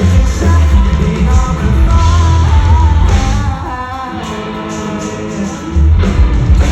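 A pop-rock band playing live, with sung vocals over electric guitar, bass and drums. The bass and drums drop back for a couple of seconds in the middle, then come in again near the end.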